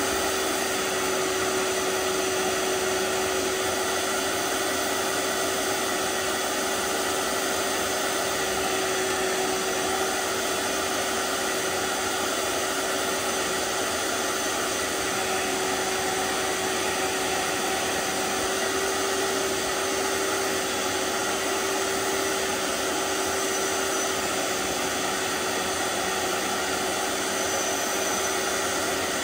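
Vax OnePWR cordless portable carpet cleaner's suction motor running steadily with a constant whine while its hand tool is drawn over wet carpet to extract liquid.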